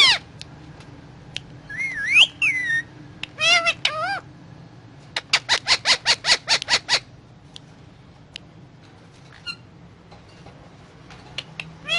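Indian ringneck parakeet squawking: a few loud, arching calls in the first four seconds, then a rapid run of short, sharp calls, about seven a second, lasting under two seconds, and more calls near the end.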